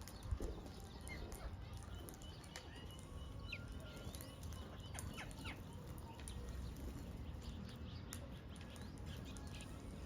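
Scattered short bird chirps and quick whistled glides, faint over a steady low background noise, with one thump about half a second in.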